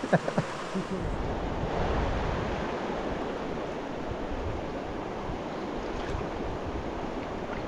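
Mountain river water rushing steadily over rocks, with wind buffeting the microphone from about a second in.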